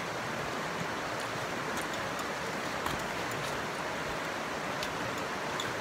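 Steady, even rushing background noise with a few faint ticks over it.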